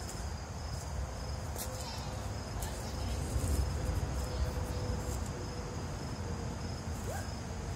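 Outdoor ambience: a steady, high-pitched chirring of insects over a low wind rumble on the microphone, with a few faint clicks.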